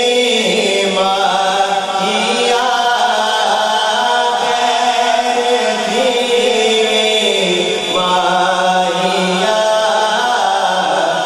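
A male voice singing a naat, an Urdu devotional poem, into a microphone without instruments. The notes are long, held and ornamented, and the melody changes pitch every few seconds.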